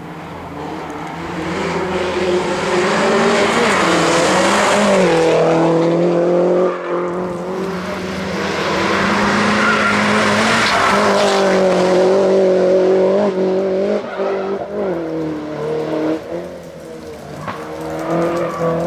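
MINI Cooper S JCW race car's engine driven flat out up a hill-climb: the note climbs through the revs, drops sharply at gear changes and as it lifts for the corners, then climbs again. It is loudest as the car passes close in the middle and fades toward the end, with tyre squeal through the hairpins.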